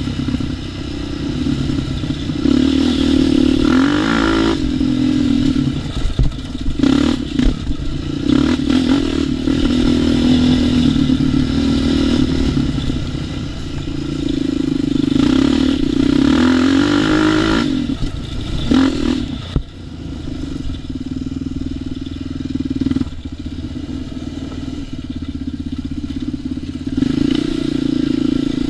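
ATV engine running on a trail ride, revving up and easing off several times, with scattered knocks and rattles from the machine over rough ground.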